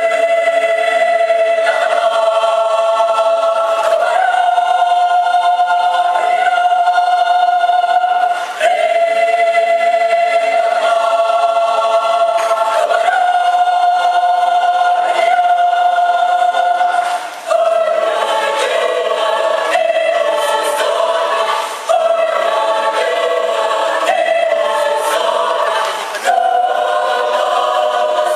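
Mixed choir of men and women singing a sacred choral piece, sustained chords in phrases of about two to four seconds with brief breaths between them.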